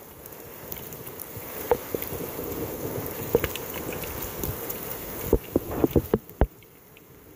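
Night thunderstorm heard through a phone wrapped in a sock at a window: a noisy wash of rain and wind swells for a few seconds and fades. Scattered sharp taps and knocks run through it, with a quick cluster a little past five seconds in.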